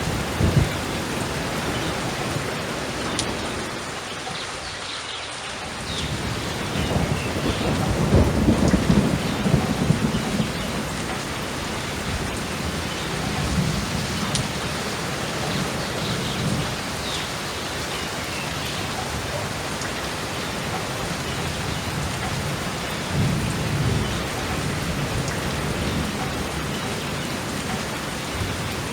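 Steady heavy rain with rolling thunder. The loudest rumble builds about six seconds in and rolls on for several seconds, and weaker rumbles come and go later under the constant hiss of the rain.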